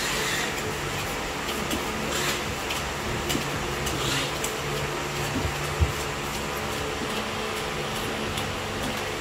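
A large knife shaving the green husk off a young coconut: a few short scraping strokes, then a single knock about six seconds in, over a steady mechanical hum.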